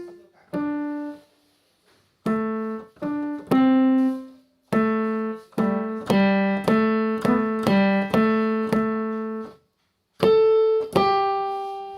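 Piano played in short phrases: a few single notes, a pause, then a run of struck chords that each die away, and after another brief pause a final chord that is left to ring out near the end.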